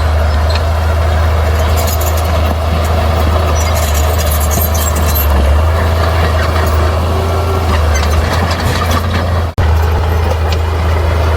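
A bulldozer's diesel engine running steadily under load, with scattered clanks and rattles over it. The sound breaks off for an instant about nine and a half seconds in.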